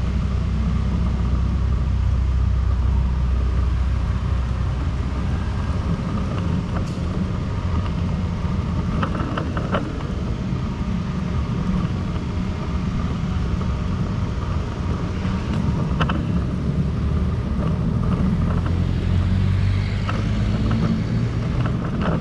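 City street ambience: a steady low rumble of road traffic, with a few faint clicks scattered through it.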